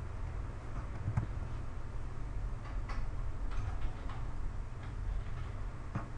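Computer mouse button clicking a handful of times at irregular intervals, over a steady low hum.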